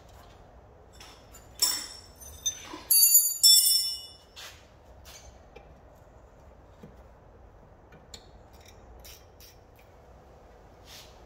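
Steel open-ended spanner clinking and ringing against a rear brake caliper and its bolts as the caliper is undone. A cluster of sharp metallic clinks comes about two to four seconds in, followed by a few lighter clicks.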